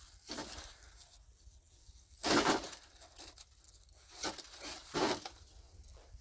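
Several short scraping, crunching noises as snow-covered birch logs are shifted on a wooden log sled, the loudest about two seconds in.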